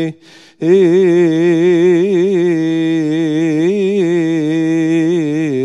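A man chanting the close of the Gospel reading in Coptic liturgical style: one long melismatic phrase whose pitch wavers and turns, after a short breath just after the start.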